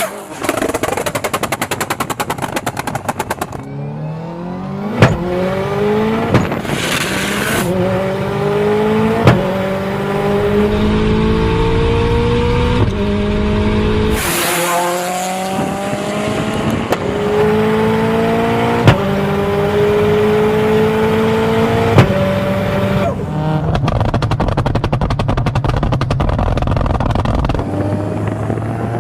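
Tuned 850 hp Subaru WRX STI's turbocharged flat-four accelerating hard through the gears, its pitch climbing in each gear, with about five sharp exhaust bangs at the shifts. Rapid exhaust crackling and popping off the throttle comes near the start and again toward the end.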